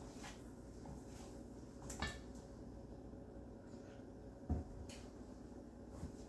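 Quiet mixing of dumpling dough in a metal bowl. A few soft clicks of utensils against the bowl, and one louder thump about four and a half seconds in.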